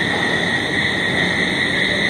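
Steady whirring hiss with a constant high whine, like a running machine such as a fan.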